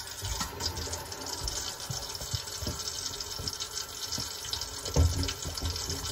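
Kitchen faucet running steadily into the sink and draining away, a leak test of the freshly reassembled drain connections under the sink. A low thump about five seconds in.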